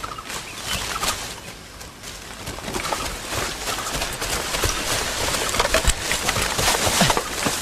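Footsteps and rustling of people moving quickly through jungle undergrowth: irregular crunching steps, with leaves and branches brushing.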